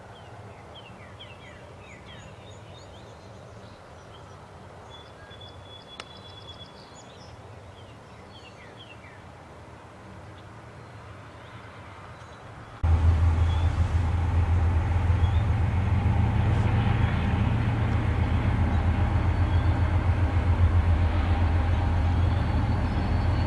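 Quiet background with small birds chirping. About halfway through the sound jumps abruptly to the steady, loud low rumble of a diesel locomotive's engine, with a fine even throb, as a CSX train runs nearby.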